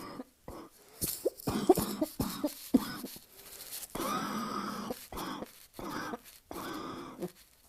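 A person's harsh, barking cough: a quick run of short coughs, then three longer drawn-out throat sounds. The cough is presented as an asthma cough.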